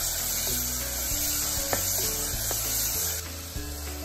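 Wooden spatula stirring and scraping chopped tomatoes and onions in an aluminium pressure cooker pot, with a few light knocks against the metal, over background music.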